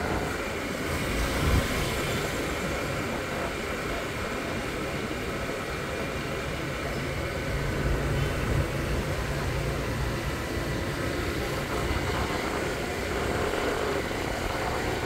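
Riding on a motorbike through town traffic: steady wind and road noise with a low engine hum.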